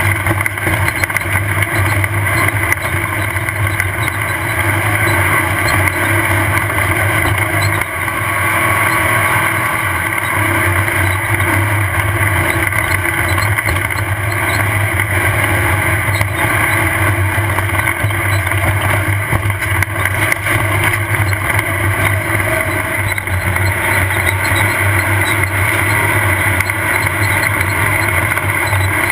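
Off-road race buggy's engine running steadily and loud, under a constant rush of noise.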